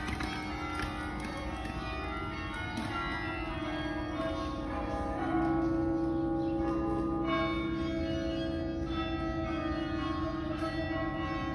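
Carillon bells of Yale's Harkness Tower playing a tune, struck notes ringing and overlapping one another. A loud low bell comes in about five seconds in and rings on under the higher notes.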